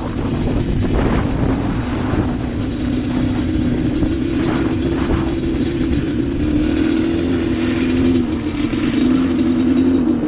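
ATV engine running at a steady, low throttle, its pitch drifting slightly up and down while it pushes another quad along.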